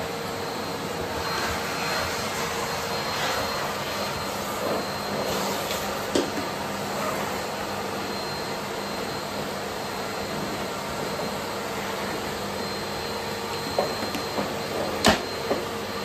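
Bosch BGS21X320 bagless cylinder vacuum cleaner running steadily. A few sharp knocks near the end as the suitcase is tipped over and laid on its side.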